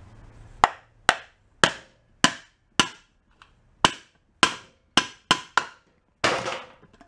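About eleven hammer blows against an air compressor pump's stuck bottom pan, each a sharp knock with a short ring, in uneven runs, the last blow near the end the heaviest, knocking the pan loose.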